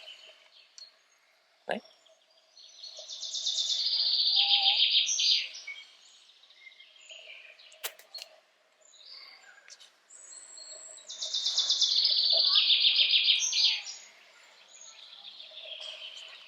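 A songbird singing two loud phrases of about three seconds each, a fast run of repeated high notes that steps down in pitch, the second phrase following some six seconds after the first.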